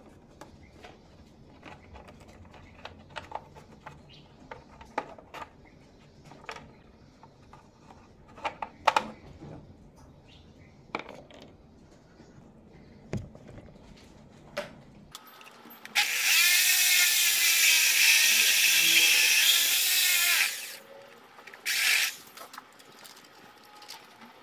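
Light clicks and knocks of a plastic car side-mirror being handled. About two-thirds of the way in, a power drill runs steadily for about four seconds, boring a hole in the mirror housing for a 360-camera lens, then gives one brief second burst.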